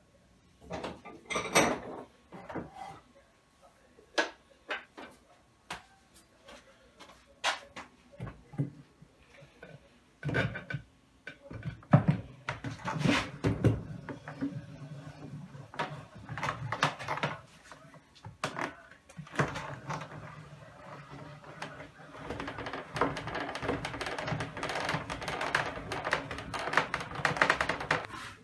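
A homemade wooden bench vise being worked: separate wooden knocks and clicks, then from about two-thirds in a long rapid creaking rasp of the wooden screw turning in its wooden nut and guide.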